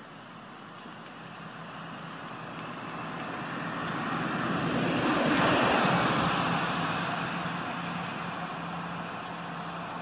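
A passing road vehicle: its noise swells to a peak about halfway through and then fades, over a steady low hum.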